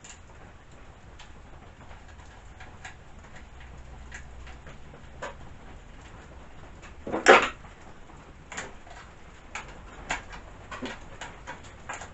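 Small clicks and knocks of chainsaw parts being handled while the bar and chain are fitted, with one louder clatter about seven seconds in and a quicker string of clicks near the end.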